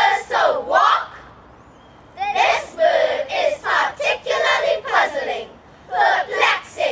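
A group of students speaking a poem in unison, loud rhythmic phrases broken by short pauses, in choral speaking style.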